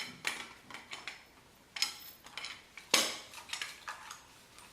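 Steel bike U-lock being closed, its shackle pegs pushed into the crossbar: a handful of sharp metallic clicks and clanks, the loudest about three seconds in, with lighter ticks around it.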